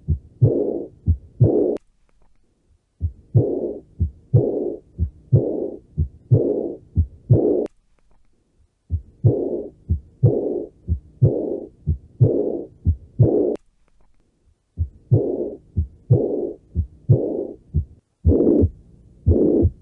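Recorded heart sounds played as several short examples one after another. Each beat is a low thump followed by a hissing whoosh, as in a heart murmur. A brief silence, starting with a click, separates one recording from the next.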